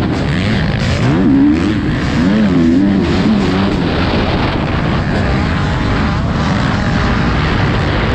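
Motocross bike engine at race pace, heard from on board. Its pitch rises and falls several times about a second in as the throttle is worked over a jump, over a steady rush of wind noise.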